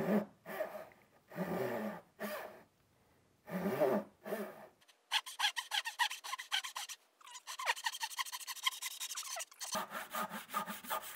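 Japanese pull saw cutting through a wooden block in a series of rasping strokes, separate at first, then a quick run of fine, even strokes through the middle, with a few more near the end.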